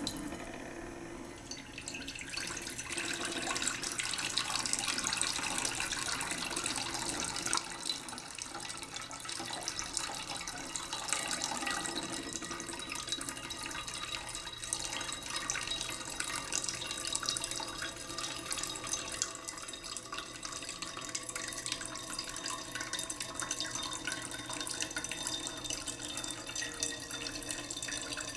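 Running water, splashing steadily with fine drips and patters, a little louder after the first few seconds.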